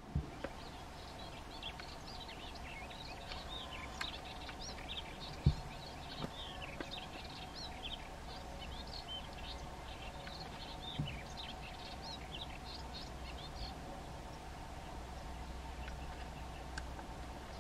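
Melodious warbler singing a long, fast run of short, varied high notes for about eleven seconds, over a steady faint hum. One sharp low thump about five seconds in.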